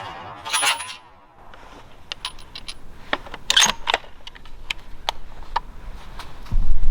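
Scattered sharp clicks and light rustles, the sharpest cluster about halfway through, then a heavy low thump near the end.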